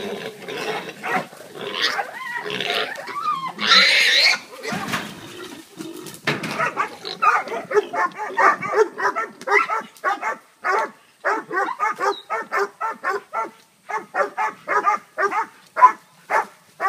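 Hog dogs baying a hog: the hog squeals and grunts in the first few seconds, loudest about four seconds in, then the dogs keep up rapid barking at about three barks a second.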